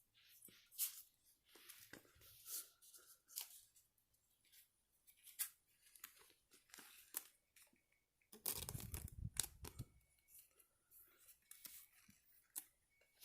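Pokémon trading cards being handled and slid against each other: a string of short, quiet papery swishes, with one louder, fuller rustle lasting about a second and a half roughly two-thirds of the way through.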